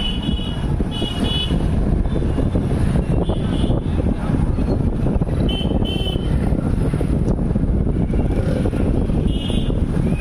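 Road traffic noise with a steady rumble, possibly wind on the microphone, and short, high-pitched vehicle horn toots, several times.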